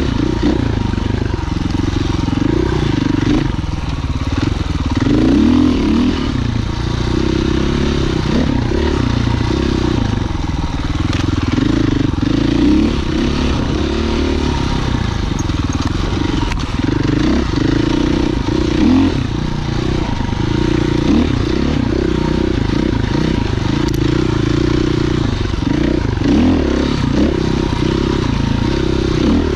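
Husqvarna FE 501 single-cylinder four-stroke enduro motorcycle being ridden on trail, its engine note rising and falling continually with the throttle.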